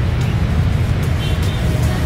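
Street traffic at a standstill: motorbike and car engines running in a jam, making a dense low rumble.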